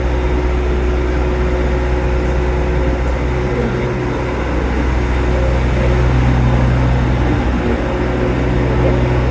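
Generator engine running at a steady speed, a loud, even low hum.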